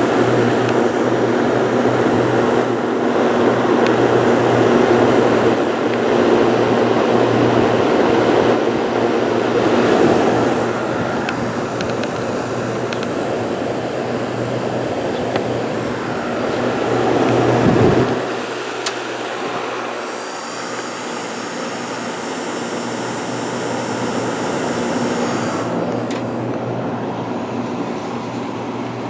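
1970 Montgomery Ward Signature window air conditioner running on low fan, heard from its back end. It gives a steady hum with rushing air from the condenser fan and the AK reciprocating compressor. About two-thirds through, the deep rumble drops away, and a faint high-pitched buzz comes in for several seconds near the end.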